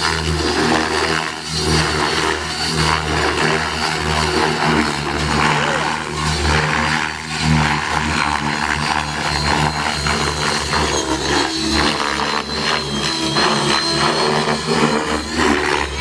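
Align T-Rex 600E electric RC helicopter flying aerobatic stunts: rotor blades whirring with motor and gear whine, the loudness swelling and dipping as it manoeuvres.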